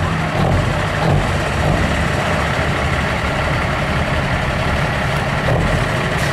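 Semi-truck diesel engines idling with a steady low sound.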